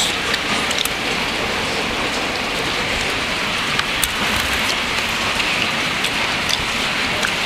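Steady rain falling, a dense even hiss, with a few faint ticks scattered through it.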